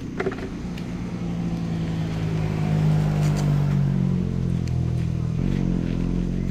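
A motor vehicle's engine running steadily, its tone rising and growing louder over the first few seconds, then changing abruptly to a different, lower note about five and a half seconds in.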